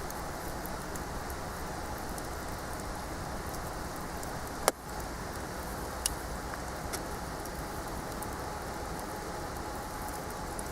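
Wood campfire burning with a steady hiss and scattered small crackles, one loud sharp pop a little under five seconds in and a smaller one about a second and a half later.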